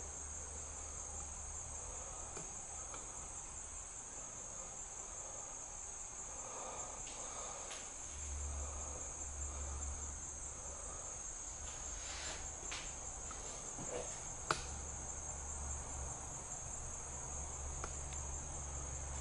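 Steady, high-pitched chorus of insects droning without a break, with a few faint clicks of steps on the floor, the sharpest about fourteen seconds in.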